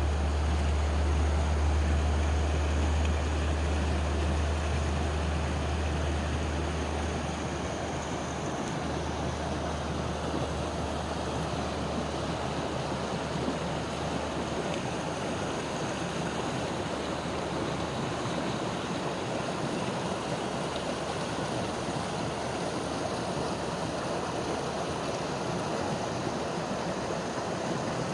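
Mountain stream water rushing steadily over rocks. A low rumble sits under it for the first half and drops away about halfway through.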